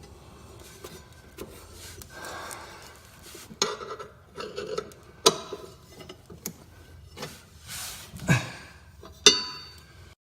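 Handling noise of work on a lawn mower: rubbing and scraping, broken by several sharp knocks and clinks. It cuts off suddenly near the end.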